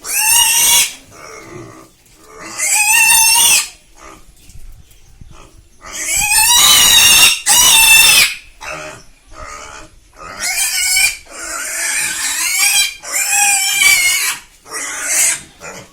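Pigs squealing shrilly in a series of loud cries about a second long each, with one longer cry of about two seconds near the middle.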